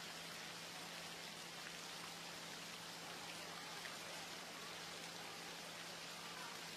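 Faint, steady hiss of pool-hall room tone with a constant low hum; no splash or other distinct event.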